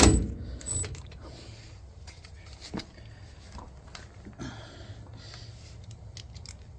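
A Milwaukee cordless power tool cuts off right at the start, followed by scattered light metallic clicks and taps of hand tools and sockets being handled while working on the caliper bolts.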